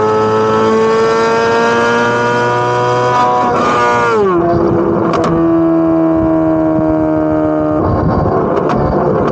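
Corvette C8 Z06's naturally aspirated flat-plane-crank V8 under load, its exhaust note rising steadily in pitch. About four seconds in it drops sharply at an upshift, then holds at lower revs with a few sharp crackles from the exhaust.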